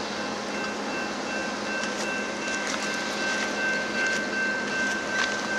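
Union Pacific freight train rolling away out of sight: a steady rush of steel wheels on rail with a faint thin whine and scattered sharp clicks.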